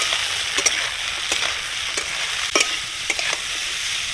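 Strips of beetroot and carrot sizzling in hot oil in a metal kadai, stirred with a metal spatula that clicks and scrapes against the pan several times over a steady sizzle.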